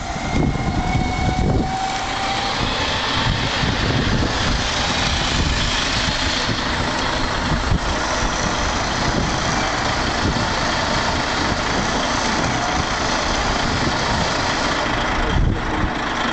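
Heavy diesel truck engine idling steadily, with a thin whine over it for the first two seconds and a single knock shortly before the end.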